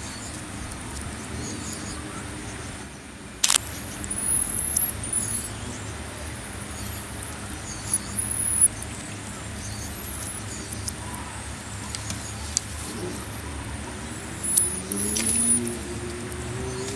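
Marmosets give short, high rising chirps every few seconds, with a few sharp clicks, over a steady low traffic rumble; near the end a vehicle engine's pitch rises.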